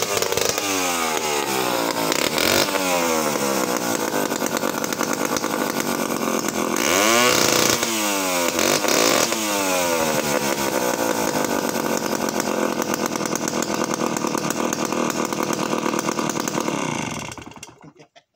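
Vintage Danarm large-displacement two-stroke chainsaw running just after starting. It is blipped up and back down several times in the first ten seconds, with the loudest rev about seven seconds in, then idles steadily and is shut off near the end.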